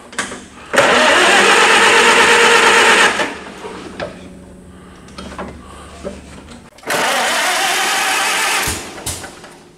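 Farmall 300 Utility tractor engine being cranked by its starter in two bursts, one of about two seconds and then another of nearly two seconds, each starting and stopping abruptly. The carburettor float is sticking and spilling fuel, which the crew takes for the cause of the hard start.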